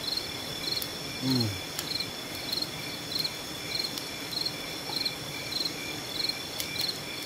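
Crickets chirping in an even rhythm, about one and a half chirps a second, over a continuous high insect drone. A short low falling sound comes about a second in.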